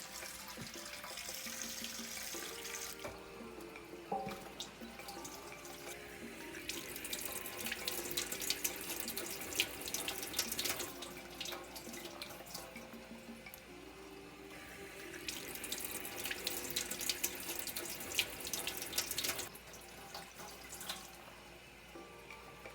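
Kitchen sink tap running while raw chicken wings are rinsed under it, the water splashing off the wings. The splashing comes in louder spells as each wing is turned under the stream.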